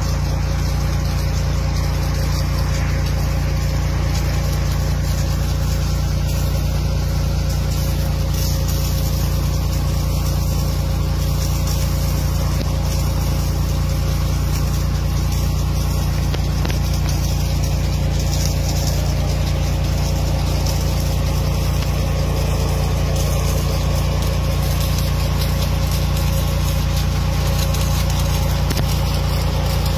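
Tractor engine running at a steady speed, unchanging throughout.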